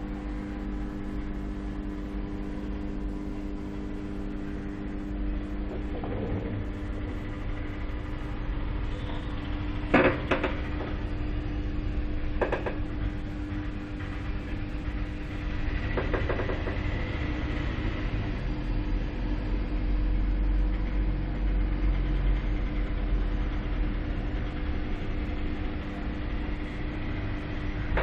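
A steady low hum and rumble with a few faint fixed tones above it. There is a sharp knock about ten seconds in and another click about two and a half seconds later.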